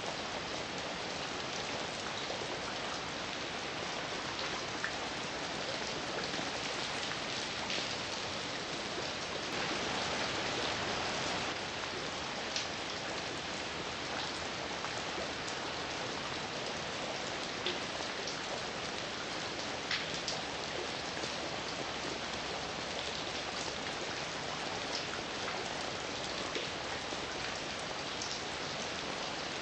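Steady rain falling: an even hiss with scattered louder individual drops hitting nearby, swelling a little about ten seconds in.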